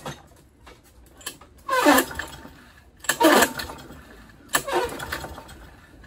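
Recoil starter of a Craftsman push mower's 149cc Kohler engine pulled three times, about a second and a half apart, the engine cranking briefly on each pull without firing. The engine won't start, which the owner puts down most likely to a dirty carburetor.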